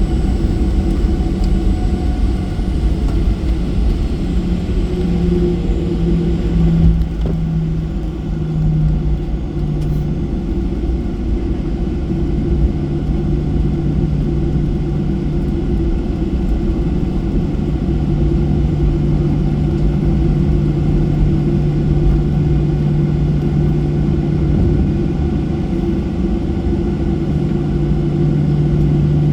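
Boeing 737-800's CFM56-7B jet engines running, heard from the passenger cabin as a loud steady rumble with a low hum that wavers in pitch over the first ten seconds, then holds steady.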